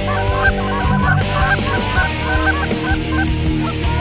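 Canada goose honking: many short honks overlapping, several a second, over a bed of steady low tones.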